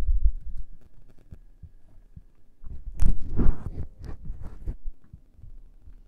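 Muffled low thumps and rubbing from close handling of an ASMR microphone, fading out over the first second. A louder scuffling burst comes about three seconds in, followed by a few faint clicks and taps.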